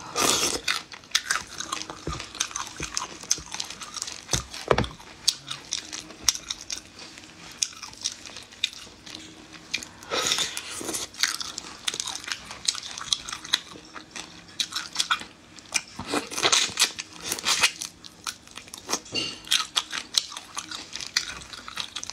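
Close-up eating of shell-on crayfish in chilli oil: sucking and slurping at the shells, shell cracking and crunching, and chewing, made up of many sharp clicks and crackles with louder bursts near the start, about halfway and later on.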